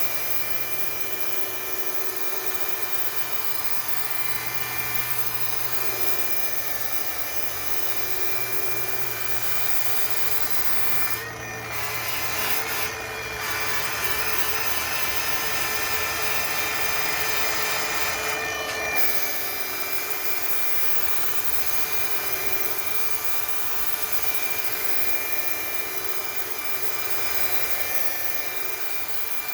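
Hercules rotary polisher with a sanding disc running steadily with a motor whine, grinding down cured body filler on a fiberglass panel. The rough sanding noise grows louder for several seconds in the middle, then eases back.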